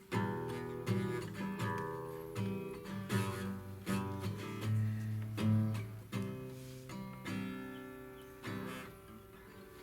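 Acoustic guitar strumming the closing chords of a worship song without singing. The last chord rings and fades out near the end.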